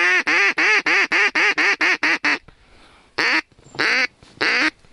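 Loud, close duck quacking in the pattern of a hen mallard's call: a run of about a dozen quick quacks, then a pause and three longer, drawn-out quacks.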